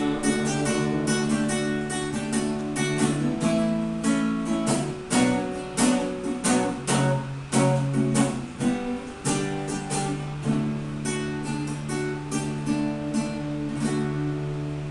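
Acoustic guitar strumming chords in the instrumental close of a sertanejo love song, without singing, growing a little quieter toward the end.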